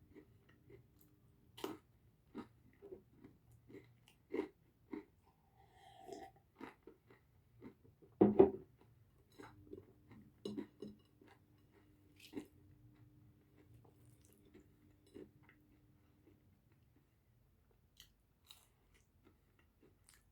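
Close-miked chewing and biting of pizza: scattered crunches and mouth clicks at an uneven pace, with one louder crunch about eight seconds in.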